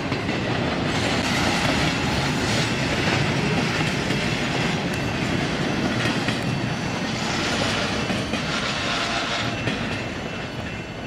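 Empty intermodal freight cars of a BNSF baretable train rolling past at speed, wheels clattering steadily over the rail joints.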